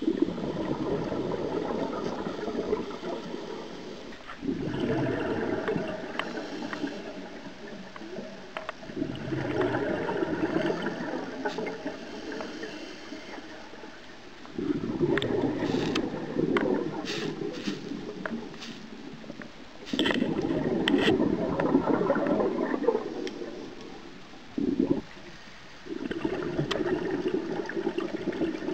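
Scuba regulator exhaust bubbles from a diver's breathing underwater: a gurgling rush of bubbles lasting about three seconds, six times at intervals of five to six seconds, with quieter inhalations between. A few sharp clicks come in the middle.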